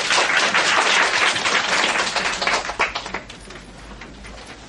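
Audience applauding, many hands clapping at once, loud at first and dying away about three seconds in.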